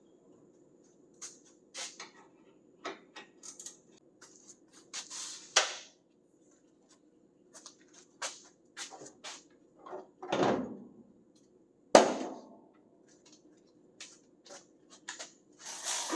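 Hand tools being handled against metal: scattered clicks and clinks of sockets and wrenches being picked up and fitted to bolts, with a few louder clanks and a sharp knock about twelve seconds in.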